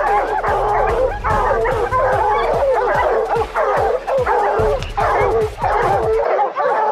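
A pack of hunting hounds barking and bawling without pause at the foot of a tree, their calls overlapping: the treed bay that tells hunters the hounds have a black bear up the tree. A steady low hum under them cuts off near the end.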